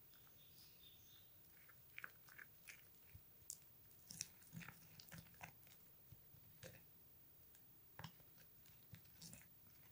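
Plastic spoon stirring a thick, sticky paste in a small glass bowl: faint, irregular clicks, scrapes and squelches of the spoon against the glass.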